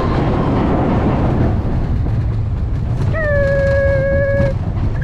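Mine-train roller coaster rattling and rumbling along its track, with wind rushing past. About three seconds in, a rider lets out one long, held cry lasting over a second.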